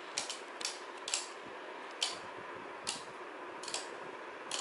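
Two Beyblade Burst tops, Wizard Fafnir and Cho-Z Spryzen, spinning close together in a plastic stadium with a steady whirr. About seven sharp clicks, irregularly spaced, come as the tops knock against each other in a stamina battle.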